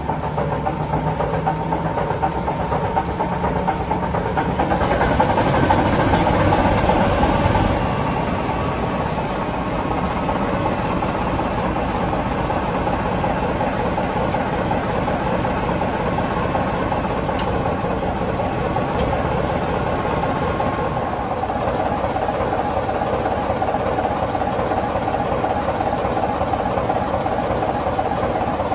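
Class 24 diesel locomotive's Sulzer six-cylinder engine idling at the platform, a steady run with a high whine over the engine note. About five seconds in there is a louder rush of noise for a few seconds before it settles back to the steady idle, and two brief clicks come near the middle.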